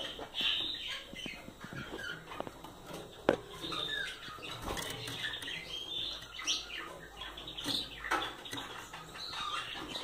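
Cage finches giving short, soft chirps, mixed with scattered small clicks and rustles of movement in the wire cage. One sharp click comes about three seconds in.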